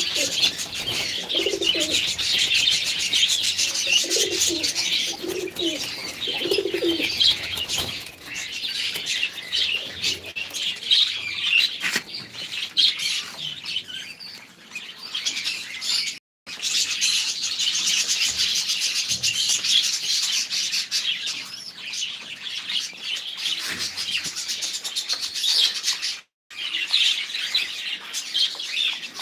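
A flock of small caged birds chirping and twittering continuously, with a dove cooing low over them in the first several seconds. The sound cuts out completely for a split second twice, near the middle and near the end.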